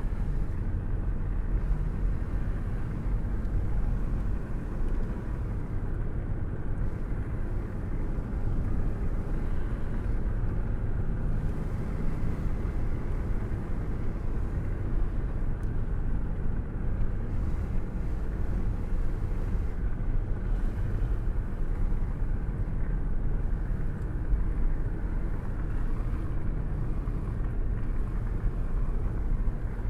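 Steady low engine and road rumble heard from inside a moving car's cabin, with tyre and road noise and no changes in speed or sudden events.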